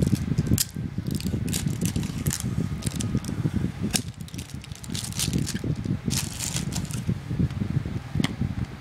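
Clear hard-plastic clamshell packaging being handled and pried off a small product box: a run of crackles, clicks and snaps of the stiff plastic.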